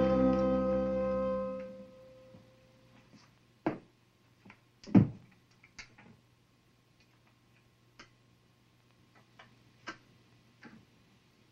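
Music ends on a held chord, guitar-like, that dies away within the first two seconds. It is followed by a few faint, scattered clicks and knocks, the loudest about five seconds in.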